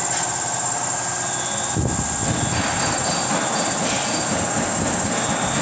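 Steady loud mechanical noise with faint high squeals. A heavier low rumble joins in about two seconds in.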